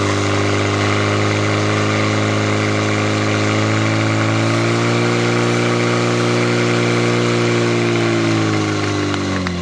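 Portable fire pump's engine running at high throttle under load, driving water through the hoses to the spray nozzles. Its pitch steps up slightly about four and a half seconds in, then falls away near the end as the engine is throttled back.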